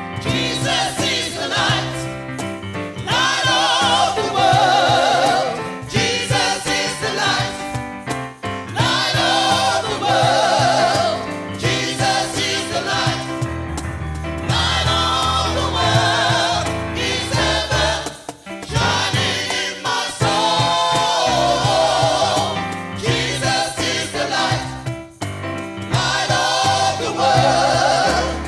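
A gospel choir singing a 1960s/70s UK Caribbean church gospel song in phrases of a few seconds each, over instrumental backing with a steady bass line.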